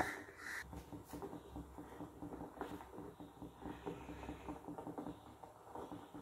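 Faint crackling of oil heating in the cups of an unniyappam (appe) pan on a gas burner, a quiet patter of small ticks over a low hiss.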